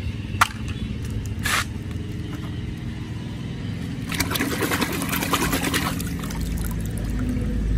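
Plastic toy bus swished back and forth through a tub of muddy water, splashing in a quick run about four to six seconds in, after a sharp click and a short splash earlier on. A low steady hum sits underneath and grows louder near the end.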